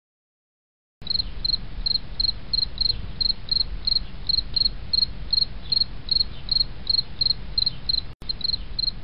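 Cricket-like insect chirping, short high chirps about three times a second, over a low steady rumble. It starts about a second in and drops out briefly near the end.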